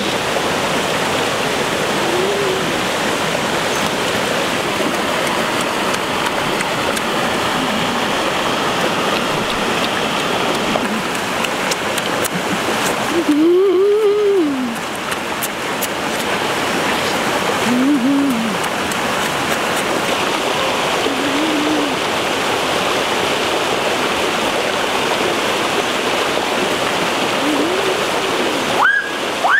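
Steady rush of a shallow river flowing over rocks and a small cascade. A few brief low hums from a person eating rise over it, the loudest about halfway through.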